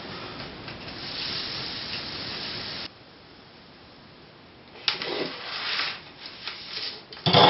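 Soldering a wire onto a battery-box terminal: a steady hiss for about three seconds that cuts off suddenly, then light clicks and handling noise, with a louder clatter near the end.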